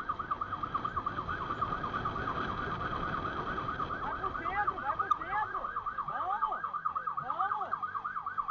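Police siren on a fast yelp, a warbling tone repeating about five times a second over a low rushing noise. About four seconds in, a second, slower rising-and-falling tone joins it.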